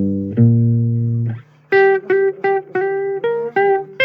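Blues guitar break with no singing: two held low chords ring for about a second and a half, then after a brief pause a run of short, quickly picked notes.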